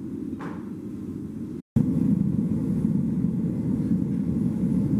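Gas forge burner running with a steady low rumble. The sound breaks off for an instant near two seconds in and comes back louder.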